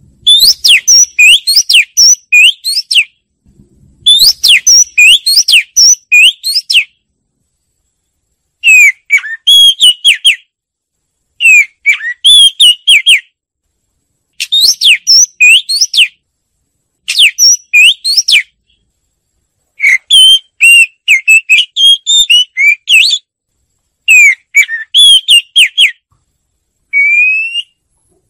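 Oriental magpie-robin singing close to the microphone: about nine loud phrases of quick, varied whistled notes that slide up and down, each phrase lasting one to three seconds with short pauses between them.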